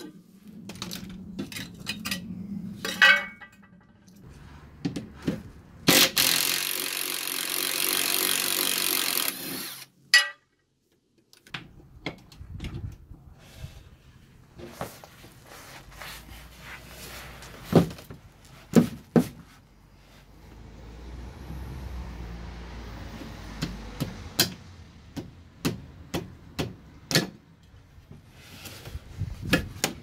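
A cordless power tool undoing the fixings of a car's rear sway bar, running in a short burst and then a longer run of about three seconds. After that come scattered metal clinks and knocks as the parts and tools are handled.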